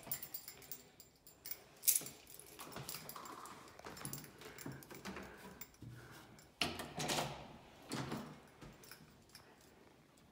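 Scattered light clicks, knocks and rustling of handling and movement, with one sharp knock about two seconds in.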